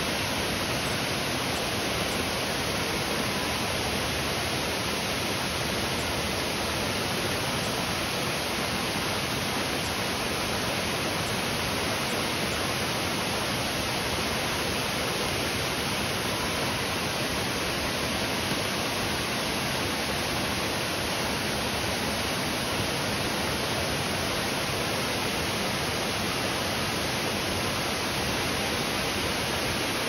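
Waterfall pouring into a pool: a steady, even rush of falling water that does not change.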